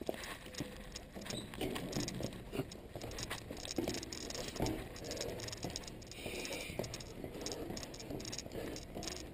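Climbing a rusty caged steel ladder: irregular taps and light knocks of hands and shoes on the metal rungs, with clothing rustling.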